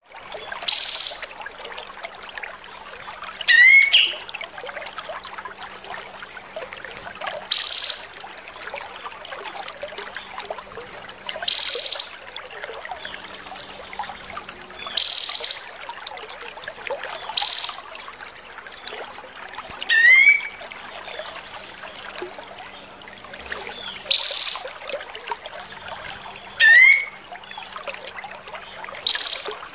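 Kapas tembak singing over and over. It gives loud, short, harsh calls about every two to three seconds, and a few of them are quick rising whistled phrases. A steady trickling hiss runs underneath.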